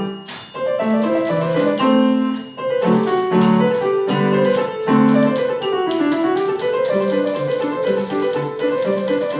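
Piano music: chords under a melody, with a run that dips down and climbs back up about six seconds in.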